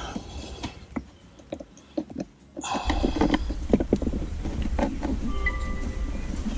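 Light plastic clicks and knocks from a screwdriver and hands working on a plastic cold-air-intake airbox. From about two and a half seconds in, a steady rushing noise with a low rumble runs underneath.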